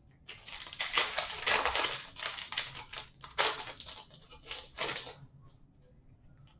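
Plastic foil wrapper of a hockey card pack crinkling and tearing as it is ripped open and handled: a run of irregular crackly rustles that stops about five seconds in.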